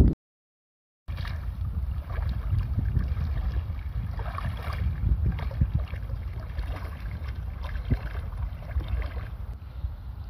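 Wind buffeting the microphone over shallow sea, with irregular light splashing and lapping of water. It starts after about a second of silence.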